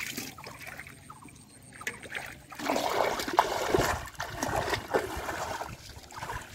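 Splashing in shallow water as a man wades and grabs at fish by hand, quieter at first, then a busy run of splashes for a couple of seconds in the middle before it eases off.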